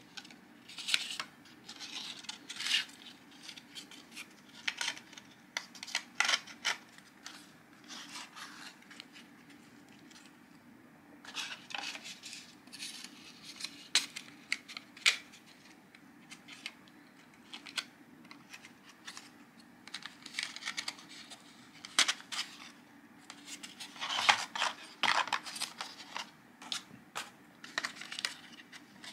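Stiff paper and card parts handled and fitted together by hand, with irregular rustling, scraping and sharp clicks as the pieces slide and press into place. A faint steady low hum runs underneath.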